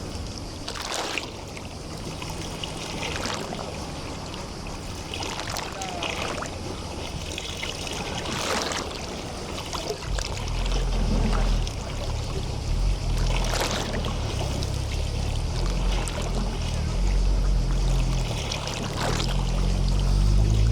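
Small waves lapping and washing against the shore of a bay, with a brief wash every few seconds over a steady watery hiss. From about halfway through, a low rumble joins in and stays.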